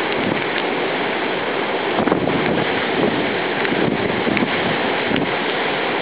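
Strong wind blowing across the microphone: a steady, rushing noise that rises and falls slightly with the gusts.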